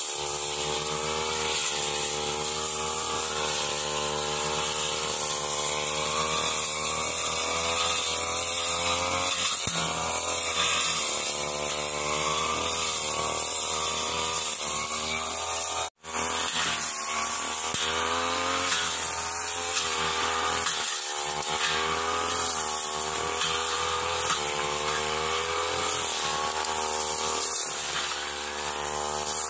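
Backpack brush cutter's small petrol engine running under load while its metal blade cuts grass and woody weeds; the engine pitch rises and falls as the throttle and the cutting load change. The sound drops out for an instant about halfway through.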